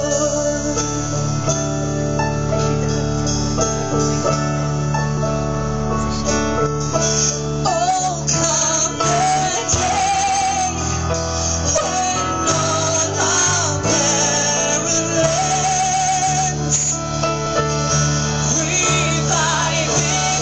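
A song sung with guitar accompaniment, a woman's voice carrying the melody with vibrato over steady bass notes.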